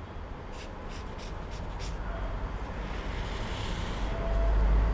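Felt-tip marker drawing a curved line on paper, a faint scratchy rubbing in short strokes, over a low steady rumble that grows louder near the end.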